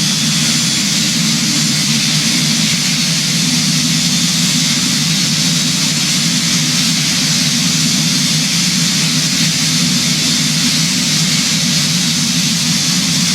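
Steady drone of an airplane in flight, engine and airflow noise holding even with no change in pitch or level.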